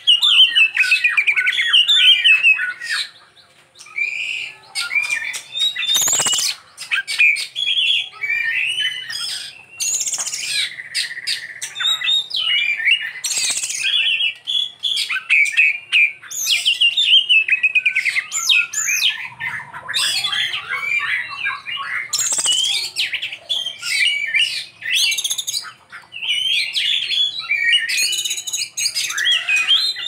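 Oriental magpie-robin singing a long, ever-changing song of rapid chirps, whistles and harsh squawky notes, packed with 'isian', learned phrases copied from other birds. There is a short break a few seconds in and another near the end.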